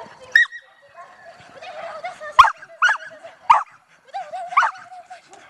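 A dog barking in short, sharp barks, about five of them, spaced unevenly, with fainter wavering sounds in between.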